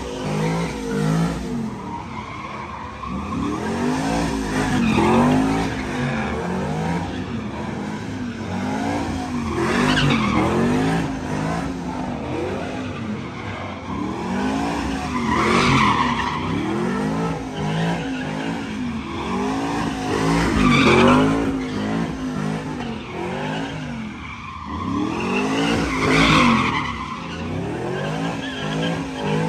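GMC Sierra pickup doing burnout donuts: the engine revs up and down over and over, about once a second, while the rear tyres squeal and skid on the pavement, swelling into louder surges every five seconds or so.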